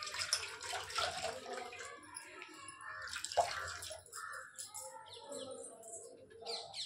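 Water splashing and dripping as a cloth is soaked in a pot of water and squeezed out, in irregular spells during the first few seconds. Birds chirp, mostly near the end.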